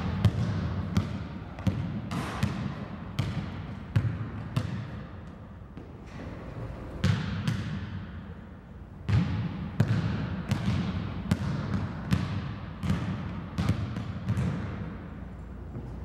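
Basketball bounced hard on a gym's hardwood floor in a steady dribble, a little more than one bounce a second, each bounce echoing in the hall. The dribbling breaks off for about two seconds near the middle, then picks up again at the same pace.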